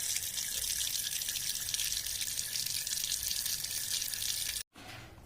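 Water running steadily through a newly unboxed water filter, flushed with water to rinse out dust before first use. It cuts off abruptly near the end.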